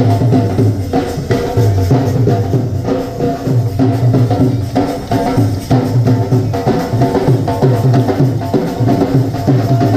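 Dhol drums beating a steady, loud dance rhythm, with a sustained melody playing over the drumming.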